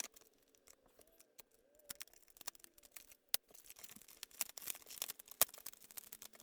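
Packaging being worked open by hand: scattered faint clicks, snips and crinkles, getting busier about halfway through.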